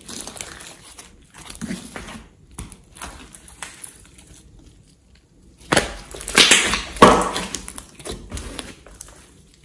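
Thick green slime being squeezed, stretched and pressed by hand: sticky, wet squishing and crackling. The sound is loudest in a cluster of squelches and crackles about six to seven seconds in.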